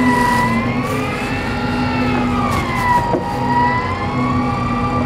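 Miyamae electric deep-sea reel winding under heavy load. Its motor whine rises and falls slowly in pitch, about twice, as the load on the line changes, over a low steady hum.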